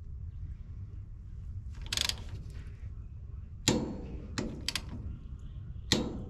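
Ratchet wrench working the head bolts of a Comet diaphragm pump: a few short, separate metallic clicks, about two, three and a half to five, and six seconds in, over a low steady hum.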